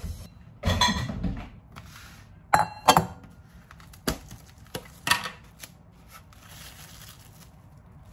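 Dishes and containers being handled in a kitchen: a short clatter about a second in, then a handful of sharp clinks and knocks, the loudest near three seconds in.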